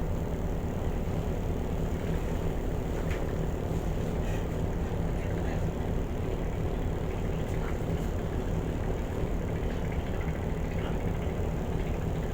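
Steady low drone of a car ferry's engines while under way, even and unbroken throughout.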